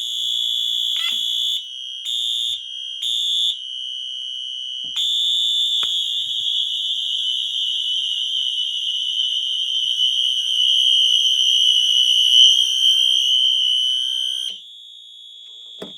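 Wheelock Exceeder and Wheelock MT24 fire alarm horns sounding together as a loud, steady, high-pitched horn tone while their tone settings are switched. About 1.5 s in the sound changes to short on-off pulses, and it returns to a steady loud tone at around 5 s. Near the end it drops to one quieter steady horn, with a few faint clicks along the way.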